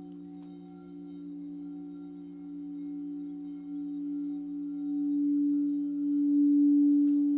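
Crystal singing bowl ringing with a steady, pure, sustained tone and a lower tone beneath it, swelling steadily louder over the second half.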